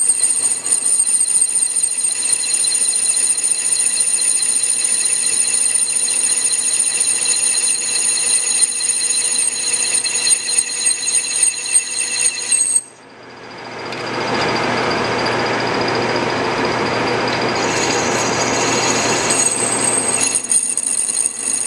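Parting tool squealing as it parts off a stainless steel ring on a Hendey metal lathe: a piercing high-pitched squeal of several wavering tones, the harsh noise typical of parting stainless. About 13 seconds in the squeal stops abruptly and a rougher, hissing cutting noise takes over, and the squeal returns near the end.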